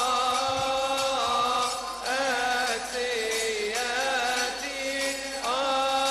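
Coptic liturgical chant sung by one voice in a melismatic style: long held notes with ornamented turns and slides in pitch, in phrases broken by short breaths about every one to two seconds.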